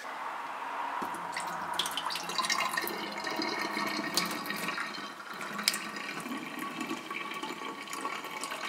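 Soaking water pouring out of a tilted stainless saucepan of chickpeas into a stainless steel sink as the chickpeas are drained, with a few light clicks along the way.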